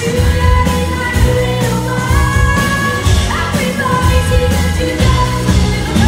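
Live band music: a woman singing long held notes with acoustic guitar and drums.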